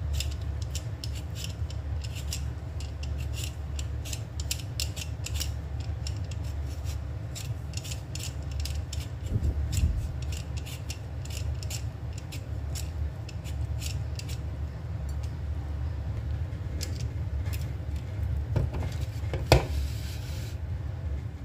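Handheld vegetable peeler scraping the skin off a raw potato in many short, quick strokes. One louder knock comes near the end.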